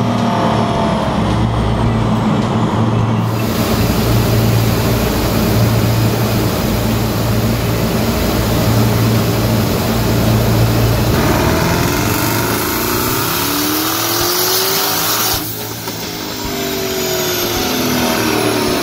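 Twin-turbocharged 6.2-litre V8 of a 2018 Camaro ZL1 running hard on a chassis dyno, its exhaust note steady for the first part. About two-thirds of the way through the sound changes: whines fall in pitch as it comes off the run, and it drops a little quieter.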